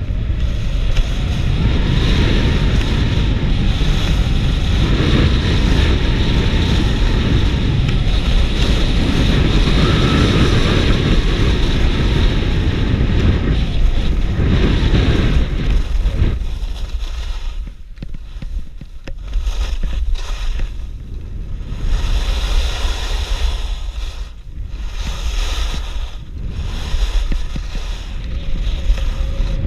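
Wind rushing over the camera's microphone with skis scraping across packed snow on a downhill run. Loud and steady for the first half, then about 16 seconds in it drops and comes back in uneven surges.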